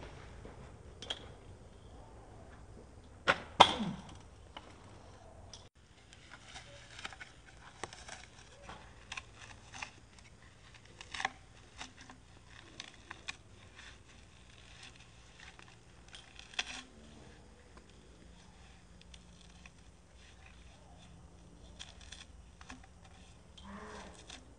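Two sharp knocks about three seconds in, as a kick scooter runs into an object on the ground, followed by scattered faint clicks.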